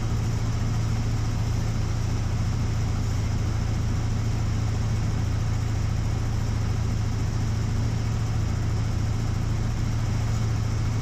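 Aeronca Chief light airplane's engine and propeller droning steadily, heard from inside the cabin on approach to land.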